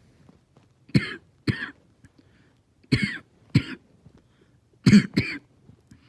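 A person's barking cough, coming in pairs: three double coughs about two seconds apart.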